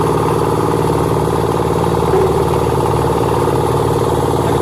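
Concrete mixer's small engine running steadily at a constant speed.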